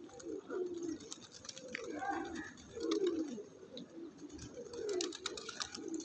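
Rock pigeons cooing, a run of low coos that fall in pitch, about one every second.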